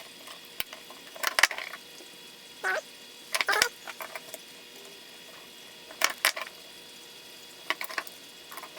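Scattered clicks and short scrapes of small plastic and metal parts being handled while a toothed drive belt is lined up and tensioned on its pulleys, with a brief squeak a few seconds in, over a faint steady hum.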